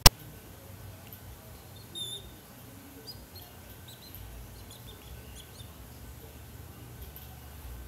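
A sharp click right at the start, then about two seconds in a short, high chirp, followed by a few fainter chirps.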